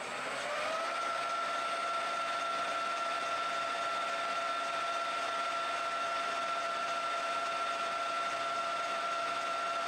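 Colchester metal lathe's geared headstock spinning up in the first second, then running at a steady speed with a steady whine while a tool takes a light skim cut along a brass collet.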